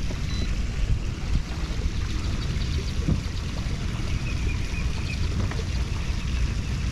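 Steady low rumble of wind and water around a kayak on a lake, with a couple of faint knocks.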